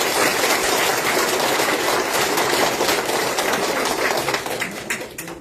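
Audience applauding: dense clapping that thins out and stops near the end.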